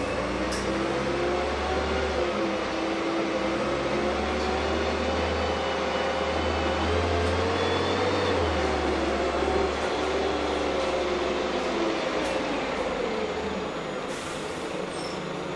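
Heuliez GX317 LPG city bus heard from inside the passenger saloon while running: a low rumble under an engine drone that rises and falls in pitch several times, with a few light clicks and rattles.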